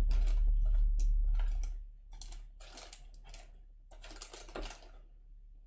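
Small plastic bags of resin diamond-painting drills being handled and sorted by hand: irregular crinkling and clicking of the bags, stopping about five seconds in. A low hum fades out about two seconds in.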